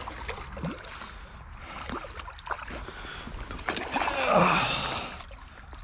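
Hooked fish thrashing and splashing at the water's surface while it is played on a light spinning rod, with short splashes and one big splash about four seconds in.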